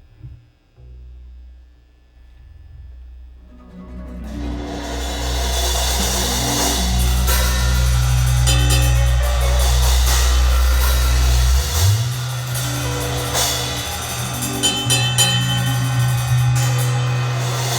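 Band playing the opening of a song in the studio: soft low sustained notes for the first few seconds, then the drum kit with cymbals, hi-hat and snare comes in with the rest of the band about four seconds in.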